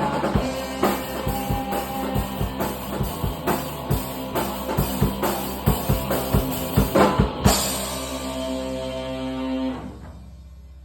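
Rock music with drum kit and guitar: a flurry of drum hits, then a final chord left ringing that stops about ten seconds in, ending the song.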